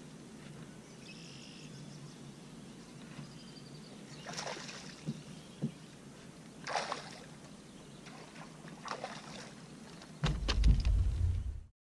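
A hooked largemouth bass splashing at the surface during the fight, with three short splashes about four and a half, seven and nine seconds in. A loud low rumble starts about ten seconds in and the sound then cuts off suddenly.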